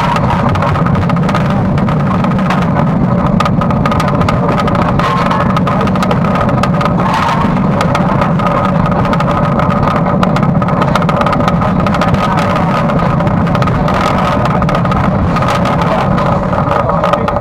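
Footplate noise of A1 Pacific steam locomotive 60163 Tornado under way: a loud, steady rumble and clatter with constant humming tones running through it and many small knocks and rattles.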